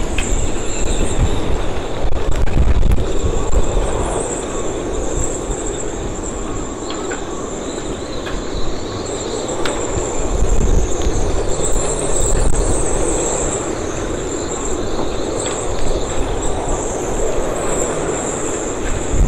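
Storm-force wind gusting across the marina, buffeting the microphone with a heavy low rumble, loudest in the first few seconds and again about halfway through. Over it runs a high, wavering whistle from the wind in the moored sailboats' rigging, with a few sharp clicks.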